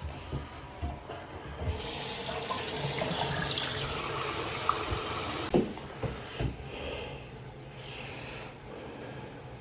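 Bathroom sink faucet running, a steady splash of water that starts about two seconds in and is shut off after about four seconds, followed by a couple of sharp knocks.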